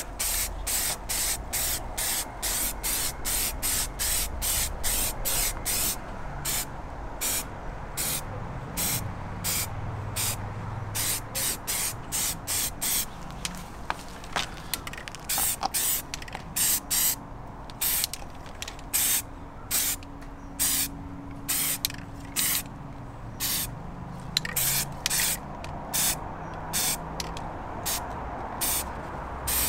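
Aerosol spray can of grey primer spraying a second coat onto a car wheel, in many short hissing bursts one after another with brief gaps between them.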